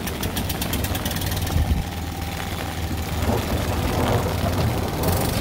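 Fire truck's diesel engine idling, a steady low rumble, with a rapid light ticking over the first second and a half.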